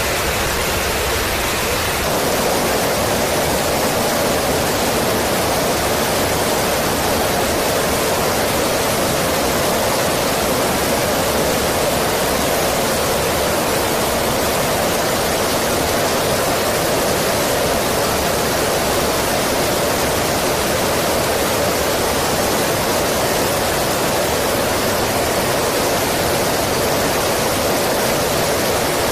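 Steady rushing noise of air and jet engines in flight, heard from an aircraft flying alongside F-35 Lightning II fighters. It grows slightly fuller about two seconds in, then holds even throughout.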